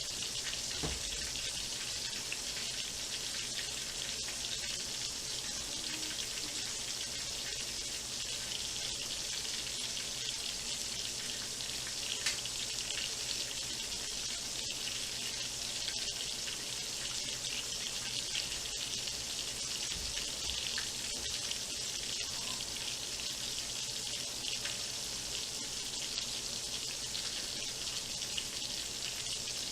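Whole chicken frying: a steady sizzle with fine crackling.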